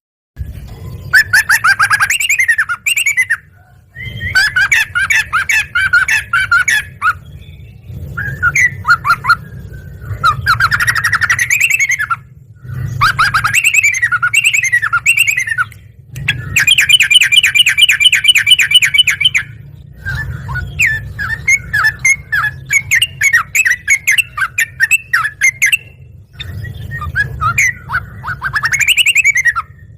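Yellow-vented bulbul (trucukan) in full song: loud chattering, warbling phrases of two to six seconds each, separated by short pauses. One phrase in the middle is a fast, even trill of repeated notes.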